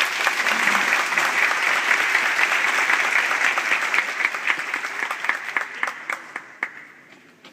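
Audience applauding, loud and dense at first, then thinning out into a few scattered claps near the end.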